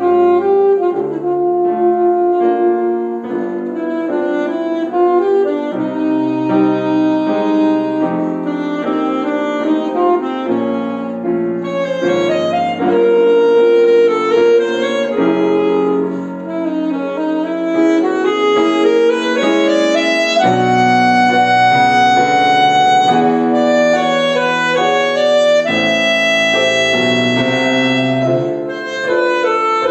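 Alto saxophone playing a legato melody of long held notes, accompanied by a grand piano.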